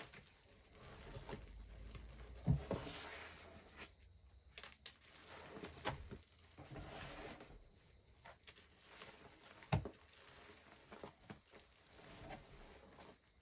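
Sponges squeezed and rubbed through thick, foamy cleaning paste: soft wet squishing and foam crackle, with sharper squelches now and then, the loudest about two and a half seconds in and near ten seconds in.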